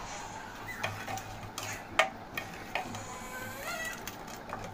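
A metal ladle stirring rajma curry in an aluminium pressure cooker, clinking against the pot several times, with the sharpest knock about two seconds in.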